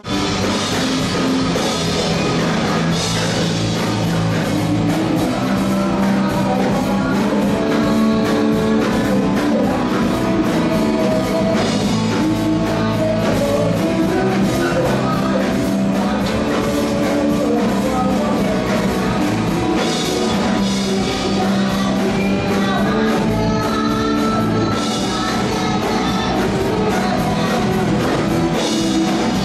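Rock song with singing, guitar and drums, starting abruptly and playing at a steady loud level.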